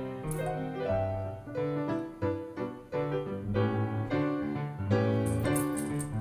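Solo piano music in the style of a silent-film accompaniment, with quick changing notes over a low bass line.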